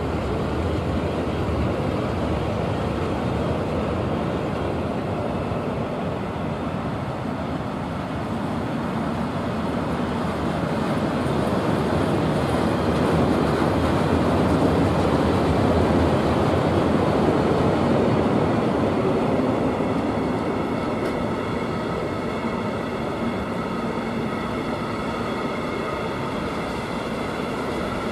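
Container wagons of a long freight train rolling past, a steady noise of wheels on rail that swells a little midway. In the last several seconds faint high, steady tones come in over it.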